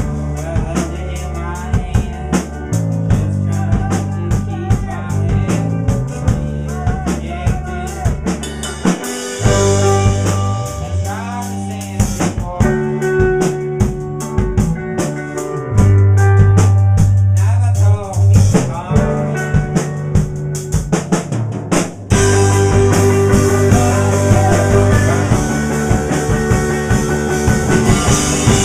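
Live rock band playing an instrumental passage: a drum kit hitting busily with snare and bass drum under sustained electric guitar and bass notes. About 22 s in, the music drops out for an instant and then comes back louder and fuller.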